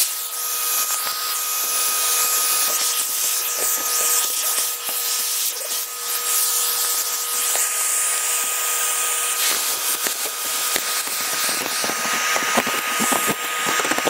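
Vacuum cleaner running with a steady whine, its nozzle sucking up loose hay bits from the floor of a guinea pig cage; scattered clicks and knocks come near the end.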